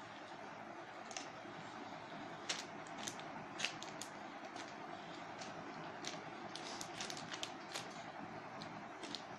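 Clear plastic packaging of a foam squishy toy crinkling in small scattered clicks as fingers poke and press the squishy through it, over a steady hiss.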